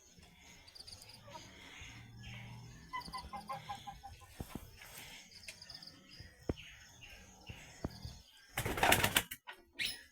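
Chickens: faint scattered chirps and a quick run of short peeps, then a loud flurry of wing-flapping near the end, lasting under a second.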